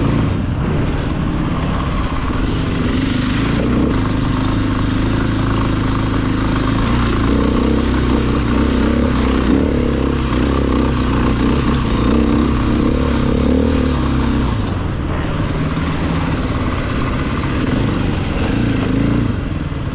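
Off-road vehicle's engine running continuously as it is driven over hilly terrain, its note swelling a little in the middle and easing about fifteen seconds in.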